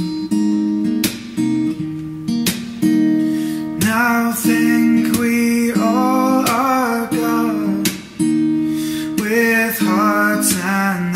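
Strummed acoustic guitar chords, with a voice beginning to sing a hymn-like song about four seconds in.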